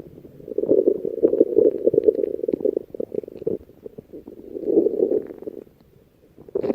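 A person's stomach growling: a long gurgling rumble of about three seconds, a shorter swell near five seconds in, then a brief lull before another growl starts at the end.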